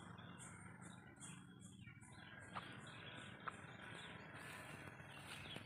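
Faint, high-pitched insect chirping in an even rhythm of about two to three chirps a second, dying away after about four seconds, with a couple of faint ticks.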